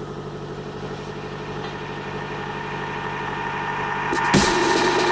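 Electronic music build-up: a steady droning synth that slowly grows louder, with a rising hiss sweeping up near the end into the beat drop.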